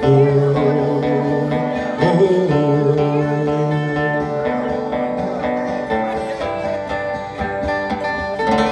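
Acoustic string band playing an instrumental outro: acoustic guitar, resonator guitar and upright bass sounding chords that change every couple of seconds, with a fresh chord struck near the end.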